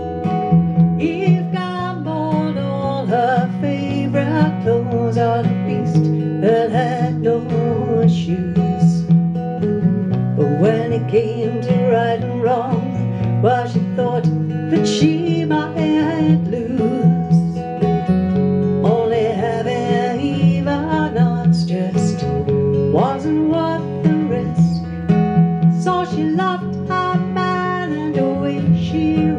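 Live duo: an acoustic guitar is strummed and picked over an electric bass guitar line, with a woman singing.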